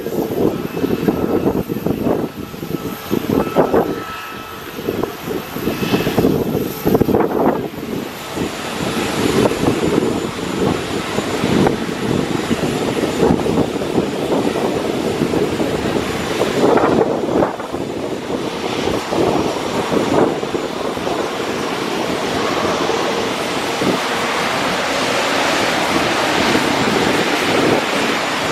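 Airliner engines running in a broad, steady roar, with gusts of wind buffeting the microphone. A faint high whine sits over the roar in the first several seconds, and the hiss in the upper range grows stronger toward the end.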